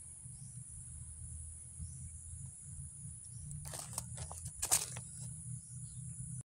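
Steady high-pitched insect drone over a low outdoor rumble, with two short rustles of dry leaves and twigs a little past halfway.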